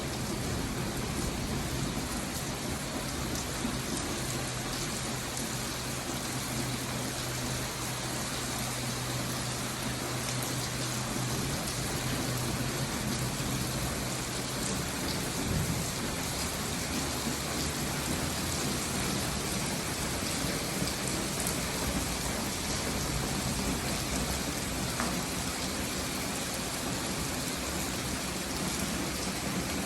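Steady rain falling, an even hiss with faint scattered drop ticks. A low steady hum sits under it for about the first half, then fades.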